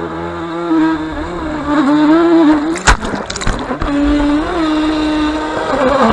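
Small RC speedboat's motor running at speed, heard from a camera on its deck, its pitch wavering and dipping as the boat crosses choppy water. About three seconds in there is a sharp slap of the hull on the water and a rush of splashing, and then the motor note steadies.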